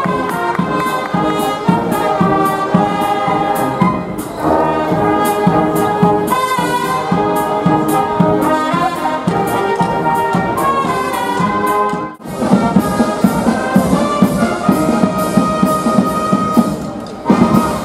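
Brass band of trumpets, trombones and a tuba playing a tune over a steady drum beat. The music drops out briefly about twelve seconds in, then carries on.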